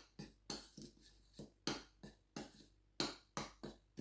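A utensil stirring dry flour, sugar and salt in a mixing bowl: quick, irregular strokes that scrape and tap against the bowl, about three a second.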